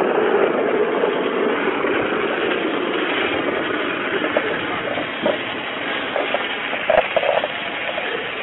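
Hand-held dry-chemical fire extinguisher discharging in a steady rushing hiss.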